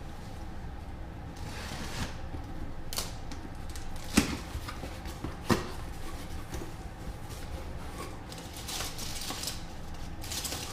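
Handling clatter as gear is moved and set up: rustling with scattered clicks and two sharp knocks, about four and five and a half seconds in, getting busier near the end.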